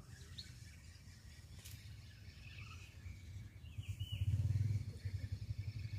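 A spinning fishing reel being cranked against a hooked fish, a low rhythmic rattle that swells about four seconds in and then keeps an even pulse. Birds chirp faintly.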